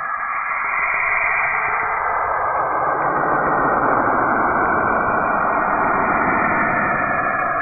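Saturn's radio emissions recorded by the Cassini spacecraft and converted to sound: a steady, eerie hiss with shifting bands of tone, growing fuller in the low end about two seconds in.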